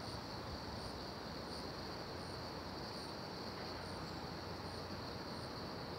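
Insects calling: a steady high-pitched trill, with short chirps repeating about every three-quarters of a second above it.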